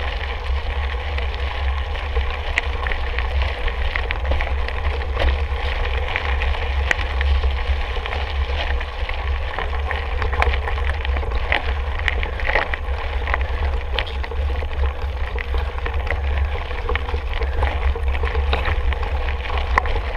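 Wind buffeting the microphone with a steady low rumble while a mountain bike rolls over a rough trail, its tyres and frame giving scattered clicks and rattles.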